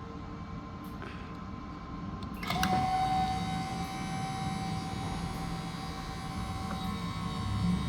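Electric hydraulic pump of a homemade cable cutter and crimper starting up about two and a half seconds in and running with a steady whine, pressurising the cylinder.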